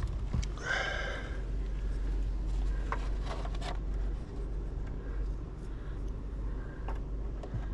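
Faint clicks and light scraping of a screw and plastic steering-column trim being handled and fitted, over a steady low rumble.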